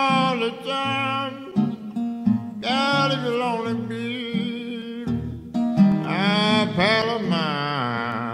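Acoustic blues music: a plucked guitar with a high lead melody whose long notes slide and bend, and no words sung.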